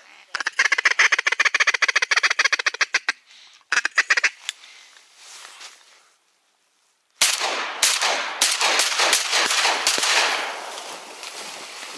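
A duck quacking in a fast run of calls for about three seconds, with a shorter burst a second later. About seven seconds in comes a sudden loud shotgun shot, then several more sharp cracks and a noisy wash that fades away: shots at a flying duck.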